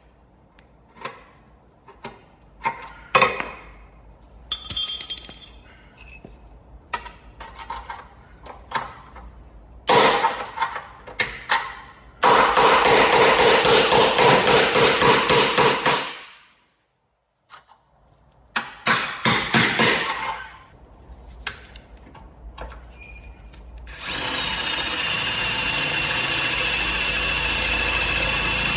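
Hand hammer striking a chisel held against a steel seam on a car's chassis leg: spaced single blows, then a fast flurry of blows lasting several seconds, then a few more. About 24 s in, a DeWalt cordless drill starts and runs steadily with a high whine, drilling into the sheet steel.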